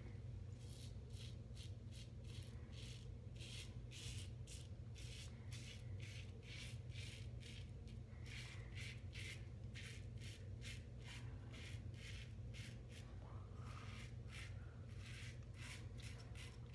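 Feather AS-D2 stainless safety razor with a Feather blade scraping through lathered stubble in short, quick strokes, a few a second, on a first pass with the grain. A steady low hum runs underneath.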